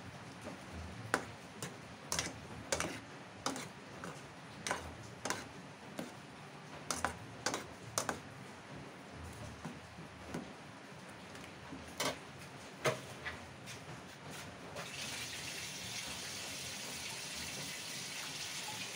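A metal spoon knocking and scraping against a metal saucepan as instant noodles are stirred, in irregular clinks over the first dozen seconds. Then a steady hiss of liquid in the hot pan for the last four seconds.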